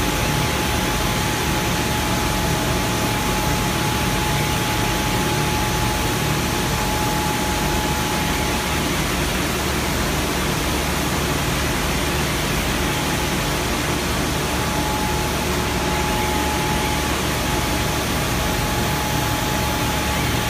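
Steady industrial hum of factory machinery and ventilation, with a constant whine above it.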